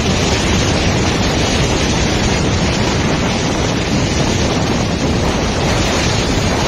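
Storm waves breaking against a seawall and pier, with strong wind buffeting the microphone: a steady, loud rushing noise.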